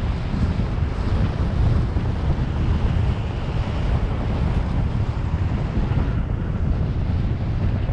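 Wind buffeting the microphone of a moving bicycle: a steady low rumble.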